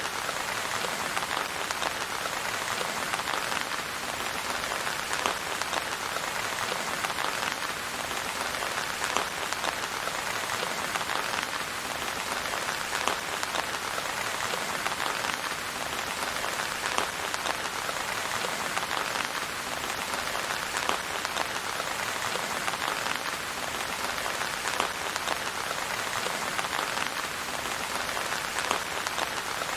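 Steady rain falling, a dense even patter of drops with occasional slightly louder drips.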